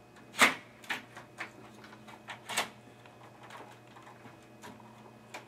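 Sharp clicks and knocks of a desktop motherboard, CPU still attached, being worked loose and slid out of a Dell computer case, the loudest knock about half a second in and a cluster of smaller ones over the next couple of seconds.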